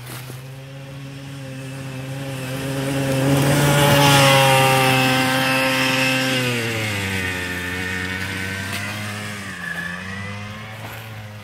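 Engine of a homemade buggy running as it drives past over snow. It grows louder to a peak about four seconds in, then fades, with its pitch dropping as it goes by and dipping briefly again near the end.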